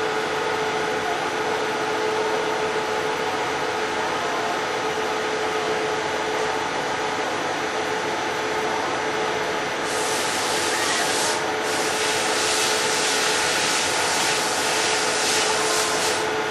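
CNC milling machine running with a steady hum and spindle tone while a thread mill cuts an external thread in Hastelloy dry, without coolant. About ten seconds in, a harsh high hiss of the cut starts, breaks off briefly, then carries on until near the end.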